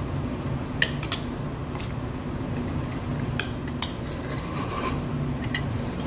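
Metal chopsticks clinking against a ceramic bowl and a stainless-steel pot as noodles are lifted across: a handful of sharp, scattered clicks over a steady low hum.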